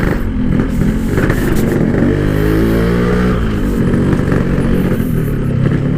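Two-stroke Yamaha RX-King motorcycle running through a Packing Power PK1 aftermarket exhaust while riding; the engine note rises about two seconds in and drops back a second or so later.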